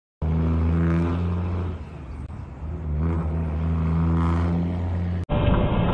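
A vehicle engine running with a steady low hum that drops away about two seconds in and swells back. Near the end it cuts abruptly to a different engine and road noise.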